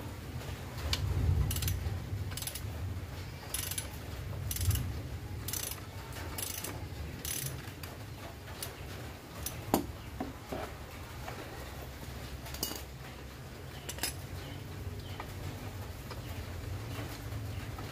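Socket ratchet wrench clicking as it is swung back and forth on a bolt at the rear of a Yamaha Aerox scooter. The clicks come in short bursts about once a second for the first several seconds, then only now and then.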